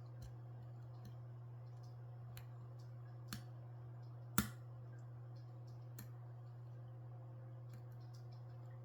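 Sparse small clicks and taps of a short-hook lock pick working the pins of a pin-tumbler lock under tension, the sharpest about four and a half seconds in: the picker is testing and tapping pins that are thought to be set. A steady low hum runs underneath.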